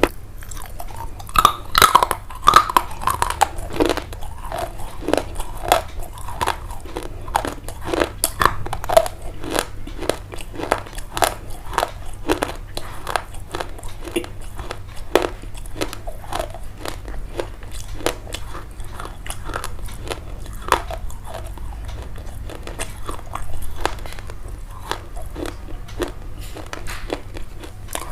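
Crunchy chewing: a dense, irregular run of sharp crunches and clicks as something is bitten and chewed.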